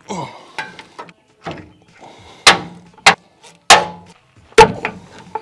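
Sharp metallic clunks under a Ford F-150's rear end as the driveline is worked back and forth by hand to check for play: about six knocks, roughly one a second, each ringing briefly.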